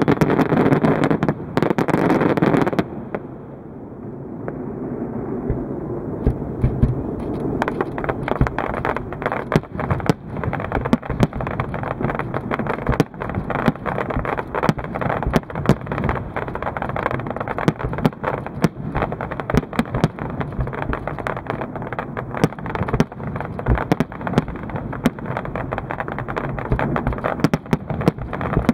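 Aerial fireworks going off. A cluster of loud bangs comes in the first three seconds, then after a short lull a dense, continuous crackle of rapid pops and bangs.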